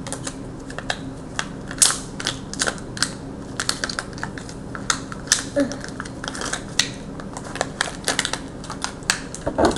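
Small scissors snipping and clicking as they cut through plastic wrapping: a run of short, sharp snips at an irregular pace, a few a second.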